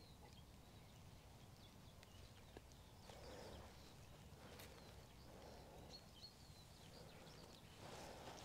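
Near silence: faint outdoor ambience with a few short, faint high bird chirps.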